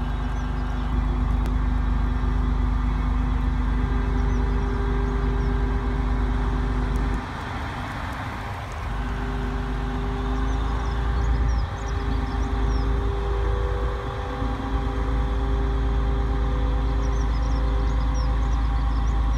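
Class 6400 diesel-electric locomotive engine running as the loco moves slowly past, a low rumble with steady droning tones; it eases off briefly about seven seconds in, then picks up again. Small birds chirp faintly now and then.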